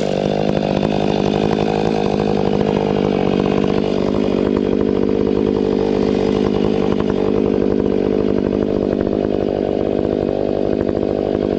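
Two-stroke chainsaw with a square-ground chain running at steady full throttle, held at an even pitch throughout, as when cutting through a log.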